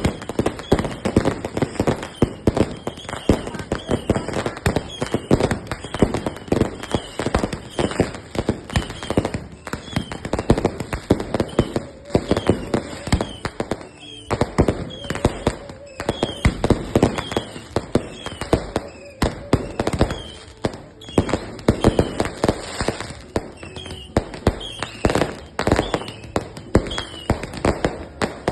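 Fireworks going off in rapid, continuous succession: dozens of sharp bangs and crackles overlapping one another, with a short lull about halfway through.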